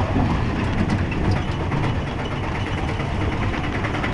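Auto-rickshaw (tuk-tuk) engine running steadily under way, a low rumble with a rapid pulse, along with road and traffic noise.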